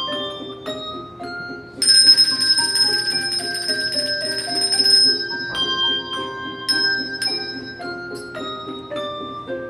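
Handbell choir playing a tune: handbells rung one after another, each note ringing on. About two seconds in, a louder shimmering stretch of held bells lasts some three seconds while a line of lower notes steps downward beneath it, and then single bell notes take up the tune again.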